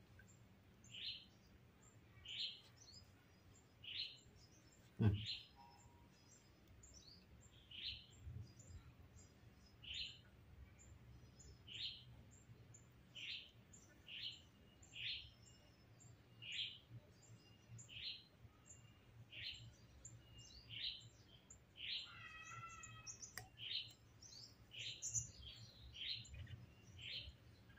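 Faint, short high chirps repeating about every one to one and a half seconds, with one longer call of about a second about 22 seconds in and a single thump about 5 seconds in.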